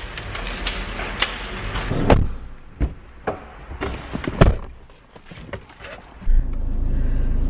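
Knocks, clicks and thuds of people getting into a car, with two heavy door-like thuds about two and four and a half seconds in. Near the end the car's engine starts and a steady low rumble sets in.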